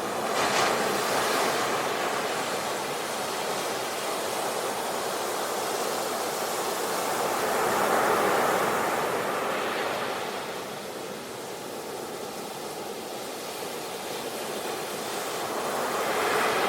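Ocean waves washing ashore: a continuous surf hiss that swells and ebbs slowly, with waves cresting about a second in, around eight seconds in, and again near the end.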